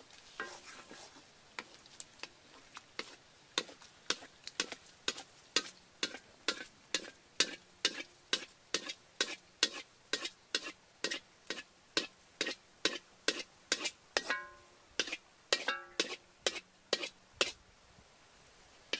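Wooden spatula stirring and scraping frying food in a steel wok, in a steady rhythm of about two to three strokes a second, a few strokes ringing briefly. The strokes stop shortly before the end.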